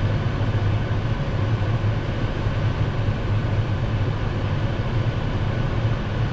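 A vehicle engine running steadily at constant speed: an even, low hum with no change in pitch.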